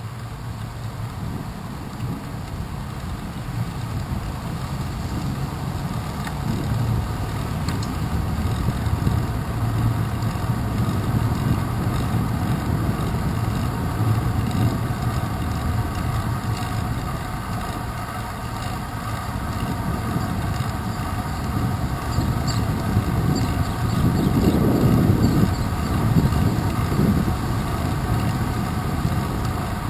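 Wind and road noise from a bicycle rolling along a wet paved path, picked up by a handlebar-mounted GoPro Hero 2: a steady low rumble that swells louder about twenty-four seconds in.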